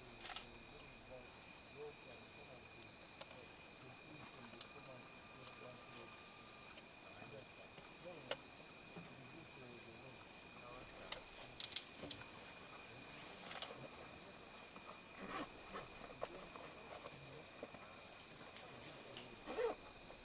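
Insects chirring steadily in two high, continuous tones; the higher one becomes a fast pulsing trill in the second half. Over this come a few scattered sharp clicks and cracks, the loudest cluster about twelve seconds in.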